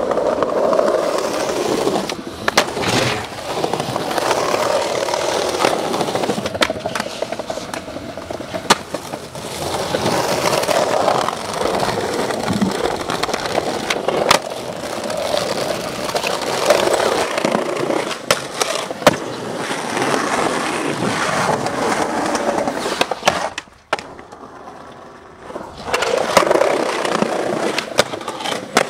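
Skateboard wheels rolling over pavement with a steady rumble, broken again and again by sharp clacks of the board hitting the ground as tricks are popped and landed. The rolling stops for about two seconds near the end, then starts again.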